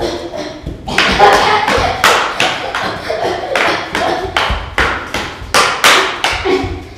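Toy swords striking each other in a quick fight: a rapid string of sharp thwacks, about two a second.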